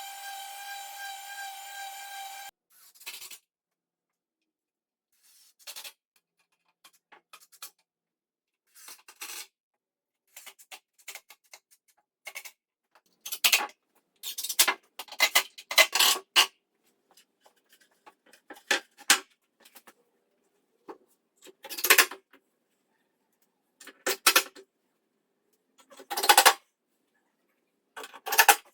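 Short scraping strokes of a hand tool on wood, in separate bursts with silence between, coming more often and louder from about halfway through. A steady whistle-like tone stops about two and a half seconds in.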